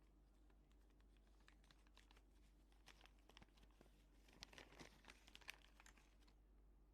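Faint, irregular small clicks and crinkling, densest from about four to six seconds in, then stopping.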